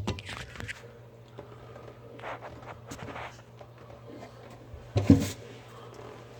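Knocks and scrapes from parts of a vessel sink's drain and mounting being handled and hand-tightened, with the loudest knocks at the start and about five seconds in. A steady low hum runs underneath.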